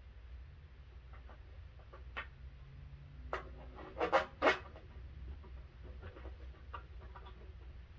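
Crib assembly hardware and wooden frame parts being handled and fitted by hand: scattered short clicks and scrapes, the loudest cluster about four seconds in.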